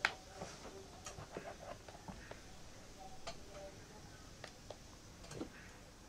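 Light clicks and taps of a Lenovo ThinkPad E14 Gen 4 laptop being handled: a sharp click right at the start as the USB-C charging plug is pushed into its port, then scattered faint taps and knocks as the lid is lifted open.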